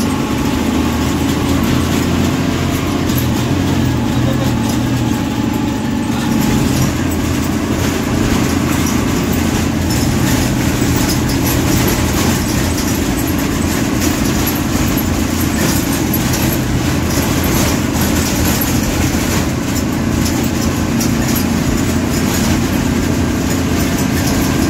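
MSRTC bus's diesel engine running steadily under way, with road noise and frequent small rattles of the bus body, heard from inside the cabin.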